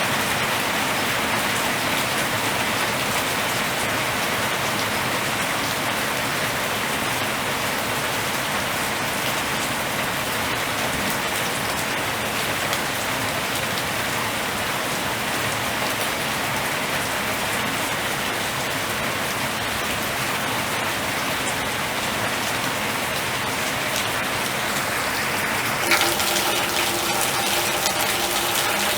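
Steady rain pouring down, an even hiss of drops hitting surfaces. About 26 seconds in, sharp clicks and a few steady tones join the rain.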